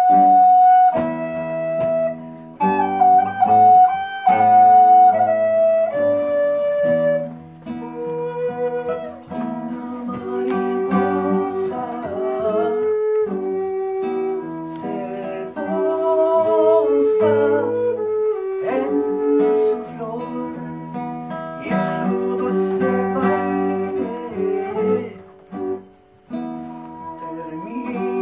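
Instrumental music: a sustained melody line stepping from note to note over plucked acoustic guitar.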